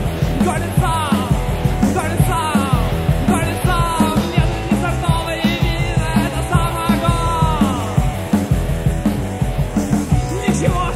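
Studio rock recording: a band with drum kit, bass and guitars playing a driving punk-rock song, with a melody line sliding up and down in pitch over a steady beat.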